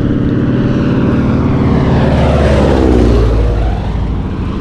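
Propeller plane flying low overhead. Its engine-and-propeller drone builds to its loudest about three seconds in, then drops in pitch and fades as the plane passes.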